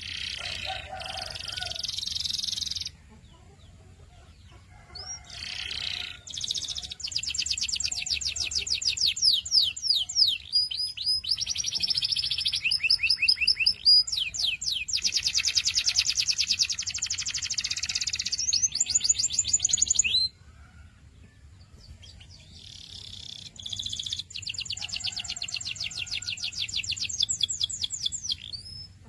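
Domestic canary singing: phrases of fast trills, each a run of rapid repeated high notes whose speed changes from one section to the next. A short phrase opens, then a long song runs for about fifteen seconds, and after a pause another phrase comes near the end.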